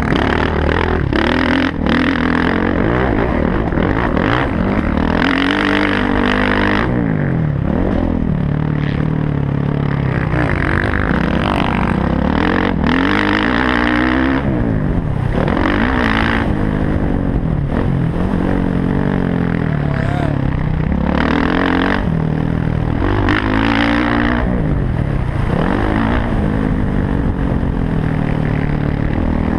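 Motocross dirt bike engine revving hard, its pitch climbing and dropping again and again as the rider works the throttle and gears around the track, heard loud from a helmet-mounted camera.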